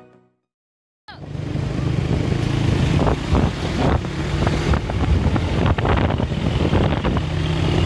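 An Indonesian intercity night bus (Murni Jaya 'Jemblem') running on the road: a steady low engine drone with road noise and scattered clicks and rattles, starting about a second in.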